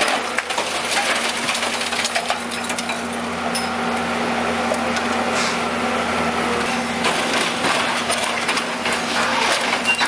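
A machine's engine humming steadily under continual cracking and crunching, as of material being crushed and broken.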